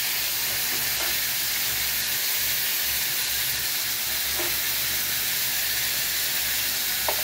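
Potato wedges frying in hot oil in a steel karahi with a steady sizzle.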